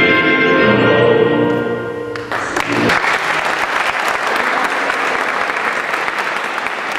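Orchestral music ends a little over two seconds in, and applause from a group of people clapping follows and carries on.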